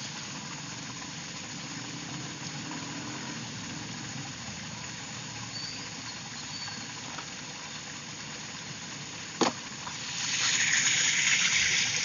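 Steady background noise with a single sharp knock about nine and a half seconds in, then a louder rushing hiss for the last two seconds.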